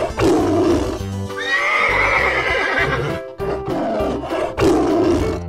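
Upbeat children's background music with cartoon animal call effects laid over it. There is a rough call at the start, then a high neigh-like call falling in pitch about a second and a half in, then a tiger growl near the end.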